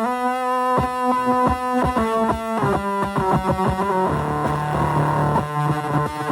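Electric guitar played through a fuzz pedal based on the Devi Ever Hyperion circuit: quickly picked, distorted notes in a steady rhythm. About four seconds in, a lower note is held under a rougher, hazier fuzz.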